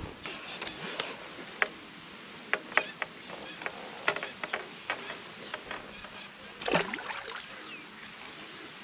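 Irregular light clicks and taps of fishing tackle being handled at the bankside, from the landing net and the net in front of the angler. A louder, longer scuffle comes about three-quarters of the way through.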